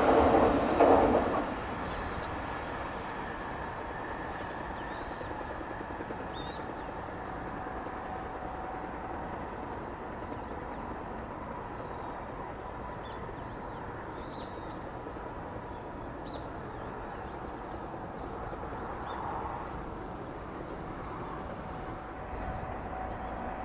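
An electric train running past loudly, cutting off about a second in, then a steady quieter rumble of rail and track-side background with scattered short bird chirps.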